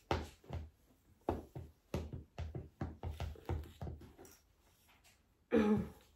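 Light knocks, about two or three a second for roughly four seconds, then one brief voice-like call falling in pitch near the end.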